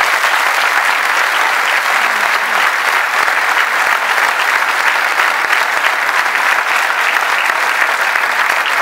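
Large audience applauding steadily, the dense patter of many hands clapping at once.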